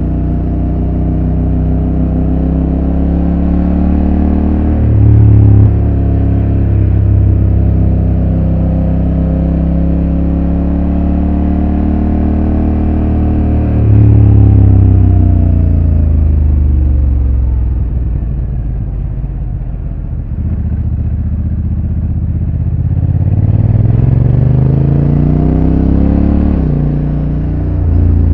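Honda NT1100's 1,084 cc parallel-twin engine through its stock exhaust, heard from on board while riding: the engine note climbs and drops sharply about five seconds in, holds steady, then falls away slowly past the middle as the bike slows. It picks up again in a rising pull and drops sharply once more near the end.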